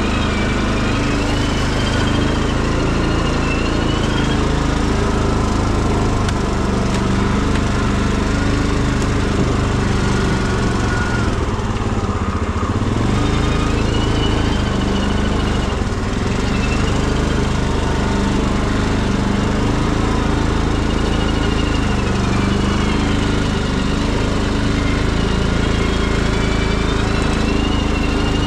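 Tractor engine running steadily as it drives, its pitch drifting up and down slightly.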